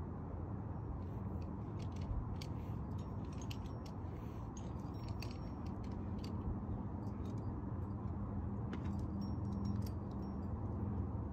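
Light metallic clinks of climbing gear (carabiners and hardware on a belay harness), scattered through the first half and again near the end, over a steady low rumble.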